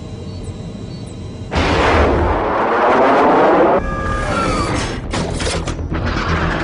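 Loud booms and blasts of battle sound effects over music. A sudden roar with a sweeping sound starts about a second and a half in and cuts off two seconds later, followed by several sharp blasts.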